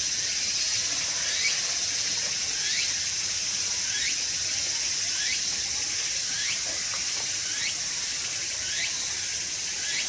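A steady high-pitched insect drone, like a chorus of insects, with a short chirping call repeated about once every second and a bit.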